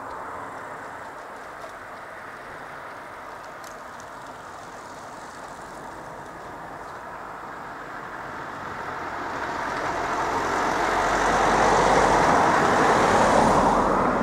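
A car approaching and driving over the level crossing, its engine and tyre noise rising steadily and loudest near the end.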